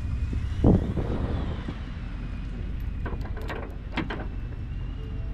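A vehicle engine idles steadily. A single heavy thud comes about a second in, then a few sharp metal clinks around three to four seconds in, from the tow hitch and chain hardware being handled.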